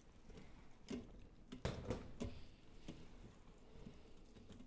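Spatula stirring shredded chicken and grated cheddar in a stainless steel Instant Pot inner pot: faint scraping with a handful of light knocks against the pot, the loudest about two seconds in.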